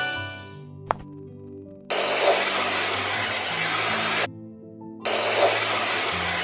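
Two long bursts of loud hissing spray-like noise, each about two seconds, starting and stopping abruptly, over light background music.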